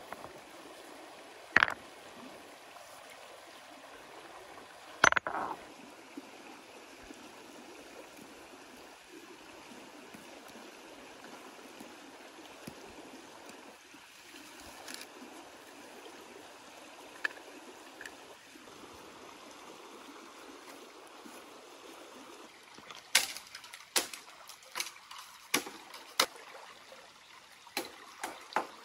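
Stream water flowing steadily, with two sharp stone-on-stone knocks in the first few seconds as rocks are set onto a fire ring. Near the end comes a quick series of about eight sharp chops: a machete cutting bamboo.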